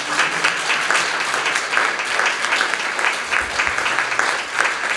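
Audience applauding: many hands clapping at once in a dense, even patter.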